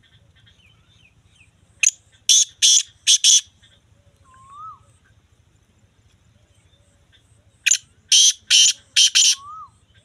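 Black francolin calling twice. Each call is a loud phrase of five harsh notes lasting about a second and a half; the first comes about two seconds in, the second near the end. A faint rising-and-falling whistle follows each call.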